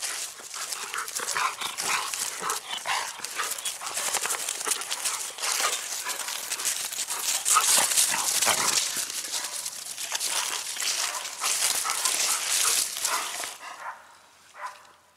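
Two dogs play-fighting on grass and dry leaves: rough, noisy dog sounds mixed with rustling of leaves and grass, dying down about fourteen seconds in.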